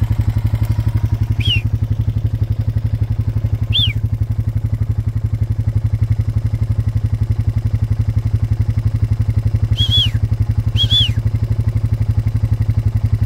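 A vehicle engine running steadily, with an even low pulsing drone. Four short, high whistle-like chirps rise and fall over it, two spread out early and a quick pair near the end.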